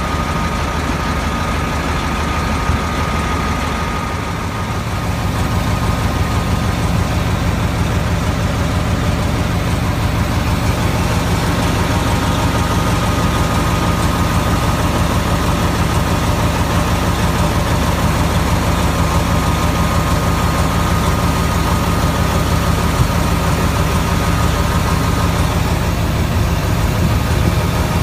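Heavy diesel engine of a 1998 Morbark 1300A tub grinder idling steadily, a little louder from about five seconds in. A thin, steady high whine sits over it for the first ten seconds or so.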